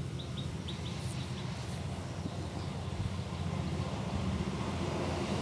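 Steady low rumble, with short high bird chirps repeating about five times a second that stop about two-thirds of a second in.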